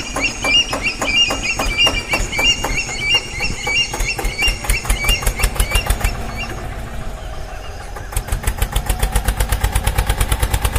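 Engine running with an even chugging beat that quickens and grows stronger about eight seconds in, playing as toy tractors and trucks are pushed along. Repeated short high chirps sound over the first six seconds or so.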